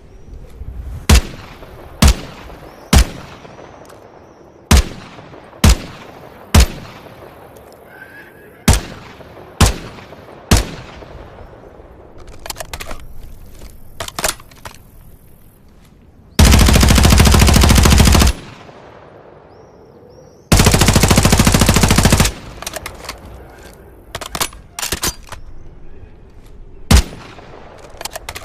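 Static-HV submachine gun firing: single shots about a second apart, then two full-auto bursts of about two seconds each, then scattered shots again.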